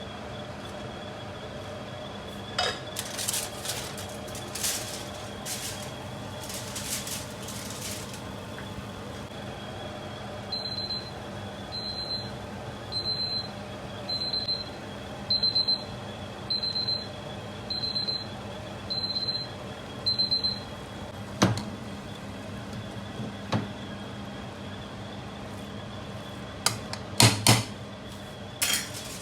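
A kitchen appliance beeps nine times at an even pace of a little under one beep a second, over a faint steady high tone. Before the beeps come a few scraping and rustling sounds; after them, a handful of sharp metal-on-metal clinks like a utensil on a pot.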